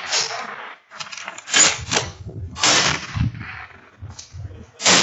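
Several gunshots at irregular intervals, varying in loudness, some ringing out for about half a second after the crack.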